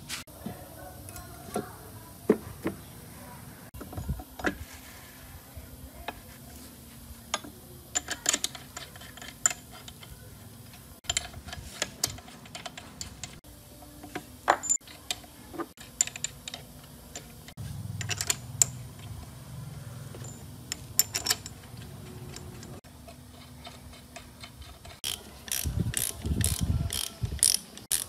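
Metal clinks and knocks as the crankshaft, main bearing caps and bolts are set into an engine block, then, about three seconds before the end, a socket ratchet clicking rapidly and evenly as the main bearing cap bolts are run down.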